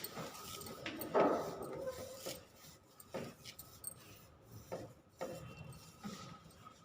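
Dry flattened rice (poha) being put into a bowl: a few separate rustles, scrapes and light taps of a utensil against the dish.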